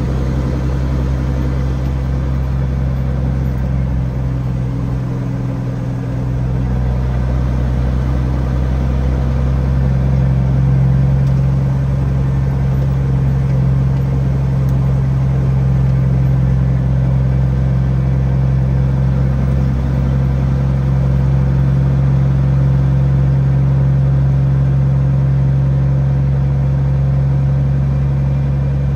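Peterbilt 379 truck's diesel engine running steadily with a low hum, a little louder from about ten seconds in.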